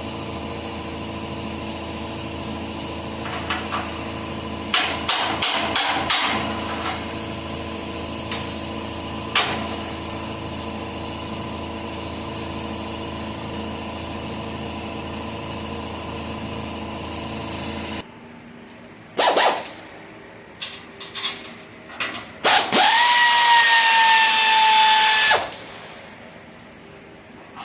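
A steady machine hum with scattered clicks and knocks stops suddenly about two-thirds of the way through. Then come a few sharp knocks, and a power tool spins up with a rising whine, runs for about three seconds and stops.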